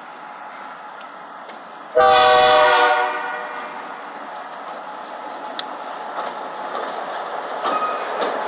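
One short blast of an EMD switcher locomotive's air horn, a chord of several tones about two seconds in, lasting about a second before it dies away. Then the train's rumble grows steadily louder, with a few clicks from the rails.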